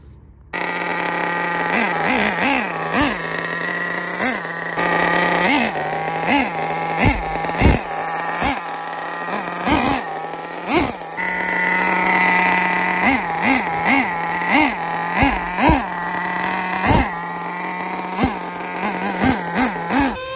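Tamiya Nitrage's FR-32FX 5.2 cc nitro engine running at a steady high idle, with many short, sharp throttle blips, about one or two a second.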